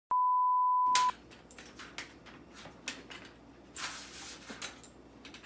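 A steady electronic beep about a second long, edited in, followed by faint scattered clicks and rustles of things being handled and moved on a tabletop.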